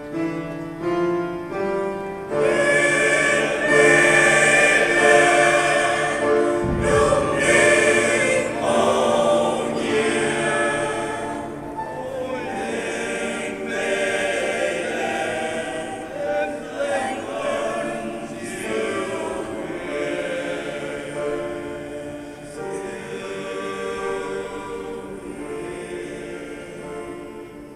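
Mixed choir of women's and men's voices singing, coming in fully about two seconds in after a few opening notes.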